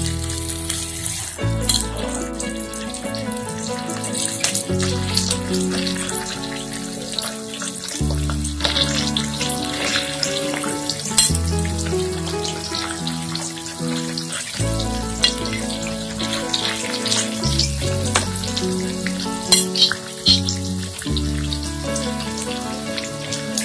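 Chicken breast strips sizzling and crackling as they fry in hot oil in a non-stick frying pan. Background music plays over it, with sustained chords changing about every second and a half.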